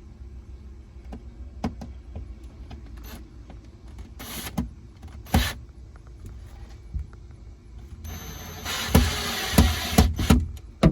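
Hands-on work noises: scattered clicks and knocks over a low rumble, two short rasping bursts about four and five seconds in, then a louder stretch of noise with several sharp knocks near the end.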